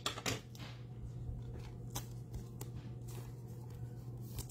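Faint handling of trading cards: a few light taps and slides as a card is picked up off the table, over a steady low hum.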